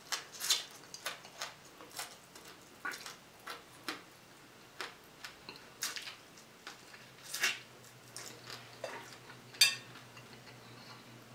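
Close eating sounds of fried croaker fish eaten off the bone by hand: scattered short wet smacks and crisp clicks as pieces are bitten, picked from the bones and chewed, with two louder ones near the end.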